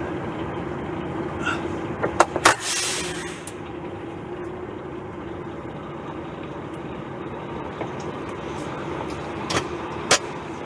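Semi-trailer truck engine idling, heard inside the cab, with a couple of sharp clicks and then a short hiss of air about two and a half seconds in. Two more clicks come near the end as the truck starts to move.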